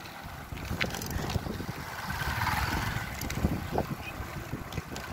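Wind buffeting the microphone while riding a mountain bike along a concrete road, with tyre rumble and a few scattered light clicks.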